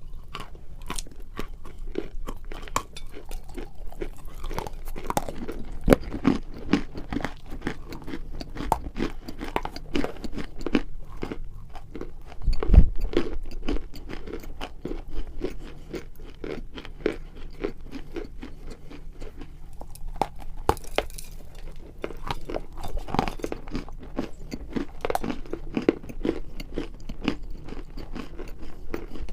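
Dry edible clay being bitten and chewed close to the microphone: a dense run of crisp crunches, with one louder bite about 13 seconds in.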